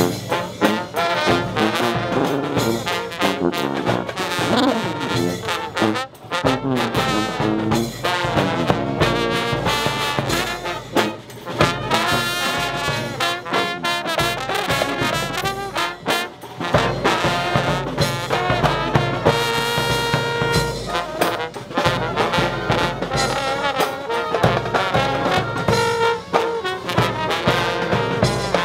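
Brass band music, with trombones and trumpets playing.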